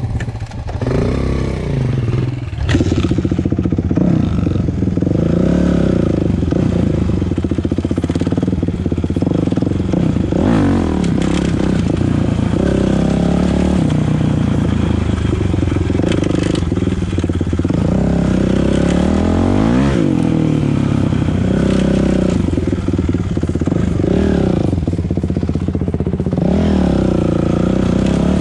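Kawasaki KX450F dirt bike's four-stroke single-cylinder engine heard from the rider's seat, revving up and down over and over as it is ridden, getting louder about three seconds in as the bike pulls away.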